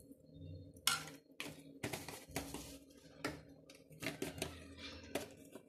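Metal spoon clinking and scraping against a plastic bowl as sliced bitter melon and tomato are tossed with seasoning: irregular light clicks, with a longer scrape about two seconds in.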